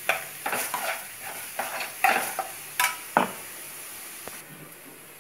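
Steel spoon stirring and scraping in a nonstick kadai as ground spice powder fries with onions and green chillies, over a light sizzle. The spoon clatters about twice a second, then stops a little after three seconds in, and the sizzle fades near the end.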